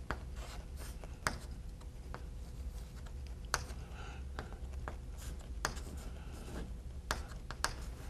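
Chalk writing on a blackboard: faint scratching strokes, broken by several sharp taps as the chalk strikes the board.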